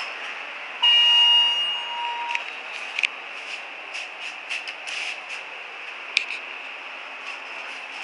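ThyssenKrupp-modernized Dover traction elevator's electronic chime sounding once about a second in: a single ringing tone that fades out over about a second and a half. Afterwards there are a few sharp clicks as the car's floor buttons are pressed.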